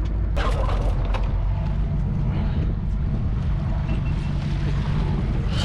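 Sportfishing boat's engines running with a steady low drone, with a hiss of water and wind over it.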